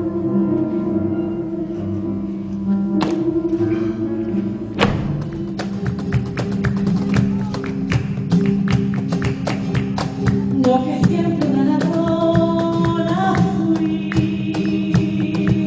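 Live music with held, droning notes. About five seconds in, a fast, dense run of sharp percussive taps comes in over it, in a flamenco-like style, and a melody line enters near the end.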